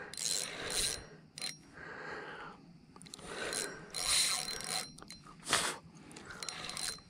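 Spinning reel working in a string of short, irregular mechanical bursts while a channel catfish pulls against the line.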